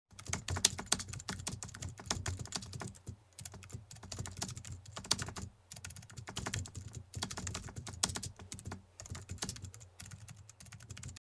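Typing sound effect: a quick, irregular run of keyboard key clicks, with short pauses about three seconds in and again near the middle.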